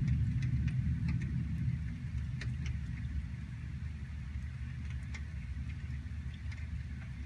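Rain over a forested hillside with a deep thunder rumble that eases off after about two seconds, and scattered drops ticking close by.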